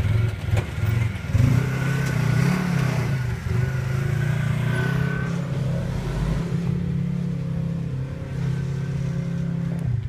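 Polaris RZR side-by-side engine revving in bursts as it crawls over rocks, its pitch rising and falling, then running steadier in the second half. A few sharp knocks come in the first second or two.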